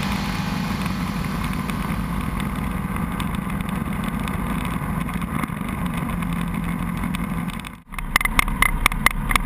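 Diamond Katana DV20's four-cylinder Rotax engine at full throttle for a touch-and-go takeoff roll, a steady even drone heard from inside the cockpit. About eight seconds in it cuts off abruptly and gives way to a choppier, lower engine sound with irregular knocks.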